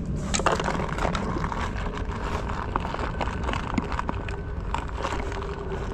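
Steady rushing outdoor noise with many small clicks and rustles from handling gear close to the microphone; a faint steady hum comes in about three seconds in.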